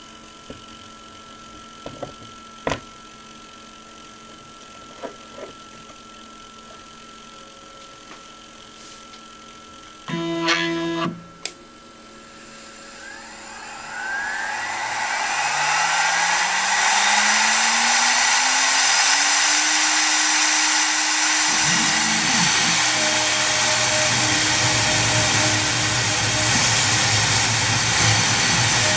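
Momus CNC X2S router spindle spinning up: after a few light clicks and a short pitched burst, a whine rises steadily from about halfway through and levels off at its 18,000 RPM running speed, with a loud steady rushing noise building alongside it. A deeper rumble joins about three-quarters of the way in.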